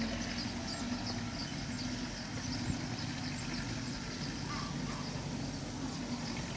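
Belarus 825 tractor's diesel engine running steadily under load as it pulls a loaded cassava trailer away along a dirt track, with faint repeated high chirps behind it.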